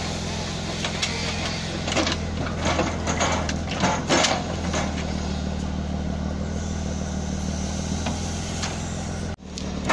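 Homemade forwarder's engine running steadily while its hydraulic log crane works. A run of sharp knocks and clatters comes from about two to four and a half seconds in, and the sound drops out for a moment near the end.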